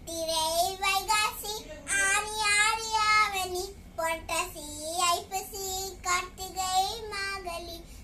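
A young girl sings, unaccompanied, a Tamil children's rhyme that names the months of the year.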